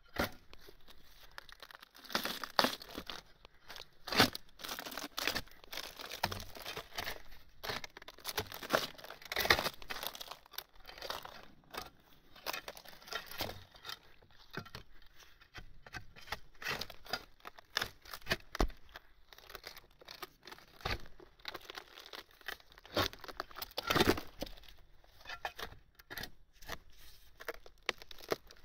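Thick bark being pried and peeled off a ponderosa pine log with a flat-bladed steel tool. The bark tears, cracks and scrapes in an irregular run of rips, a few of them much louder, as a large slab comes away.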